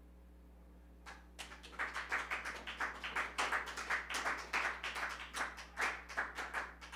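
Audience applauding, beginning about a second in after a moment of near silence.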